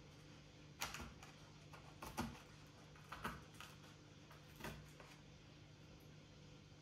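Four faint, short knocks and clicks, spread over several seconds, over a steady low hum.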